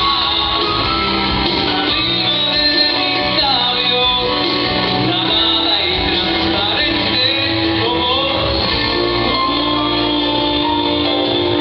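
A man singing a pop song live into a microphone over amplified backing music with guitar.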